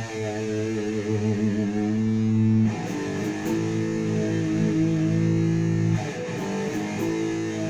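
Jackson KVXMG King V electric guitar played through a Crate solid-state amp on low-gain distortion with chorus and reverb: sustained ringing chords, changing about two and a half seconds in and again near six seconds.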